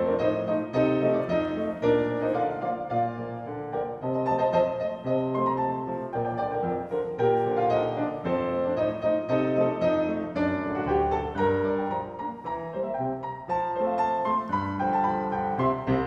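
Grand piano playing alone, a passage of a concert polka with bass notes and chords under the tune.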